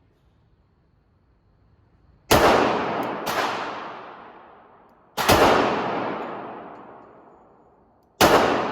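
Three single shots from a .45 ACP 1911 pistol fired one-handed, about three seconds apart, each with a long echoing tail. A fainter crack comes about a second after the first shot.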